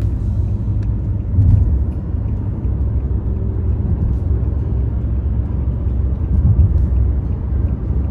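Car driving along a road, heard from inside the cabin: a steady low rumble of road and engine noise.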